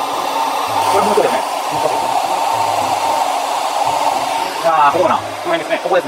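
Hair dryer blowing at full power, a steady rush of air with a thin, constant whine running through it.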